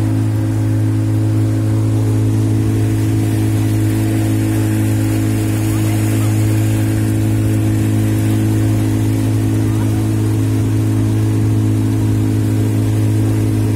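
Motorboat engine running steadily at cruising speed: a loud, constant low drone that neither rises nor falls, over a hiss of rushing water and wind.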